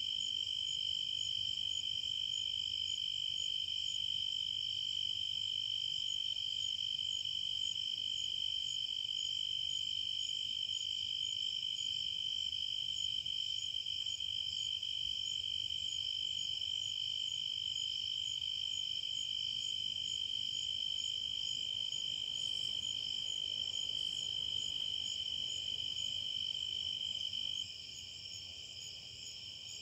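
Insects singing in a steady, unbroken high trill, with fainter pulsing insect calls above it; the loudest trill stops near the end.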